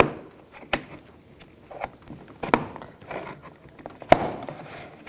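A trim tool working under a door trim panel piece, making a handful of separate sharp clicks and knocks about a second apart.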